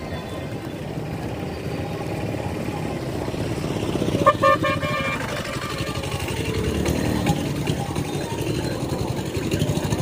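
Street traffic running steadily, with a vehicle horn honking briefly a little over four seconds in.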